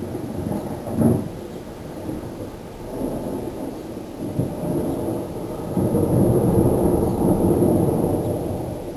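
Storm wind gusting and rumbling on the microphone, swelling stronger a little past halfway, with a sharp knock about a second in.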